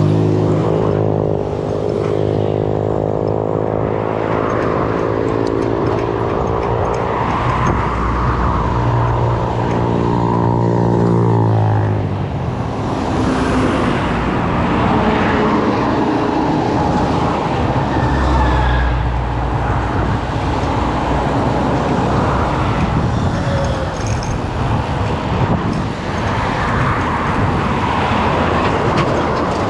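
A vehicle engine running steadily for about the first twelve seconds, its pitch falling away about twelve seconds in. After that comes a rougher mix of engine rumble and road noise.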